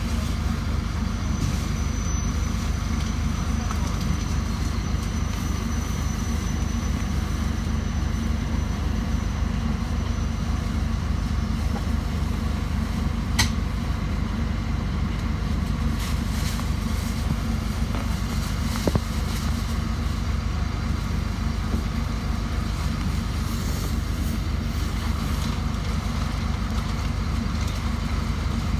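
Steady low rumble of idling route minibuses and road traffic, with one sharp click about thirteen seconds in.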